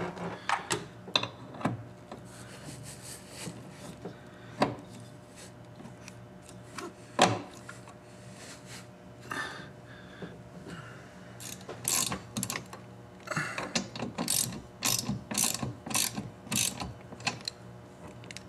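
Socket ratchet wrench clicking in quick runs while a windshield wiper arm's retaining nut is tightened, after a few scattered knocks and clicks of the wiper arm and tools being handled.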